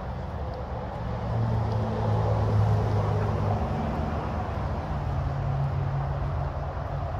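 A vehicle engine running with a low hum, its pitch and loudness shifting about a second in and again about five seconds in, over a steady background hiss.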